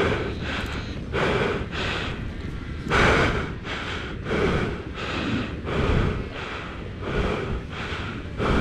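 A person breathing hard with exertion: heavy, rapid breaths in and out, a little more than one a second.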